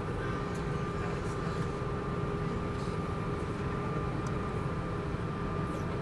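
Cabin noise of an Airbus A319 taxiing, heard from a seat over the wing: the jet engines run evenly, a low rumble with a steady high whine over it.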